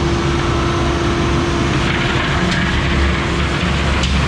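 Farm machinery running steadily while bedding cattle with baled corn stalks: a loud, low engine drone with a steady whine over it that stops near the end.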